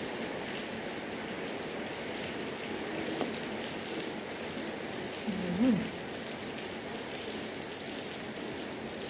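Steady hiss of background noise throughout. About halfway through, a person chewing hums a short 'mm' that dips and rises in pitch.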